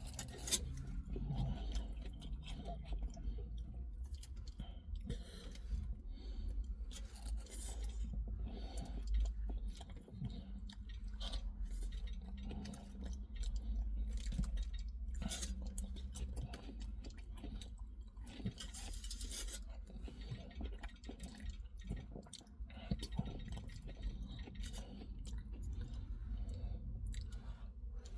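A person chewing a mouthful of chicken doner kebab close to the microphone, with irregular wet clicks and crackles over a steady low hum.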